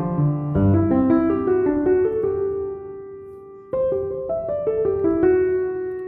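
Background piano music: a soft melody of ringing notes, one phrase fading away before the next begins about two thirds of the way in.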